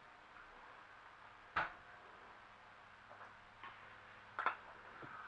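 A few sharp, irregularly spaced clicks and taps over quiet room tone, the loudest about one and a half seconds in and a quick pair near the end. They are small handling noises from the meal being prepared and eaten.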